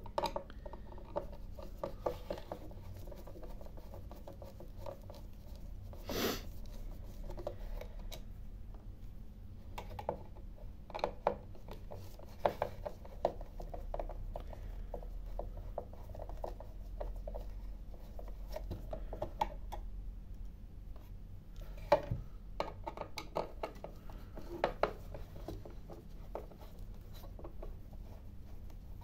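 A screwdriver turning screws out of a battery charger's plastic housing: faint, scattered clicks and short scrapes of the bit in the screw heads, with small knocks as the plastic case is handled.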